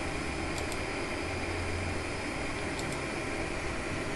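Steady room hiss with a low hum, like a computer fan or ventilation. A few faint computer mouse clicks come through it: a quick pair about half a second in and one near three seconds.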